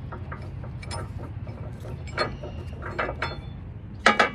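Metal clinks and rattles of a D-ring shackle and its hardware against a steel bumper as a tow strap is fastened to it, with two sharp clinks a moment apart near the end.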